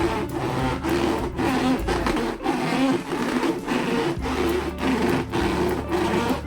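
Hands rubbing and squeezing latex balloons: continuous rubbing and scraping, with wavering squeaks and many short scratchy strokes.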